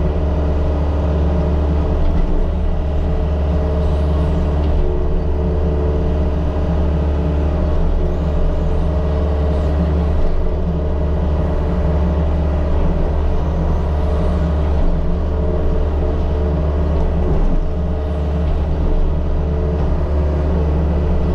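Diesel engine of a compact earthmoving machine running steadily at working speed, with a constant low drone and steady tones that hold throughout.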